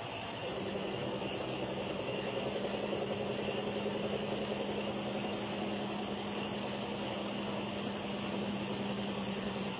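A steady low droning hum with overtones over a background hiss. It starts about half a second in and cuts off just before the end.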